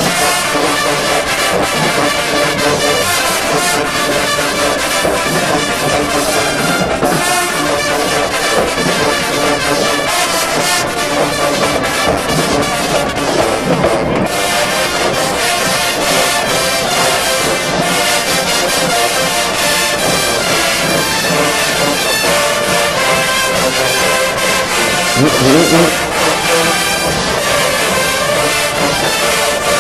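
HBCU marching band playing a slow, brass-heavy song: trombones and trumpets over the band, with a short rising slide about 25 seconds in.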